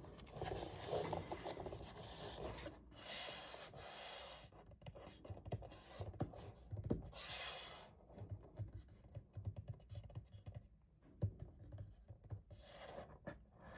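Hands tapping, scratching and rubbing on a cardboard box: quick light taps throughout, with two longer brushing swishes, about three seconds in and about seven seconds in.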